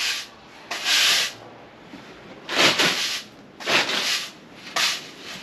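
Push broom sweeping wood chips and bark debris across a concrete floor: about five short swishing strokes with brief pauses between them.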